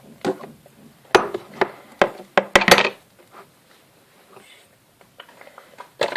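A handful of sharp clicks and knocks, about six over two seconds, from a cream container and other small objects handled on a tabletop while slime is being made.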